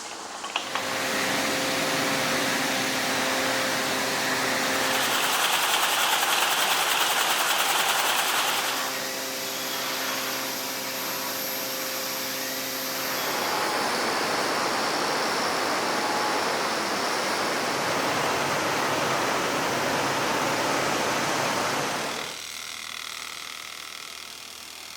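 Textile mill machinery running in a continuous industrial din that changes character in several sections. Some stretches carry a steady hum and one is mostly hiss, and the sound drops to a lower level near the end.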